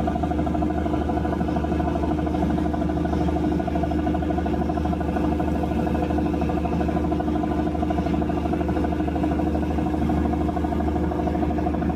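Fishing trawler's engine and deck machinery running with a steady, even drone while the loaded net is hoisted aboard.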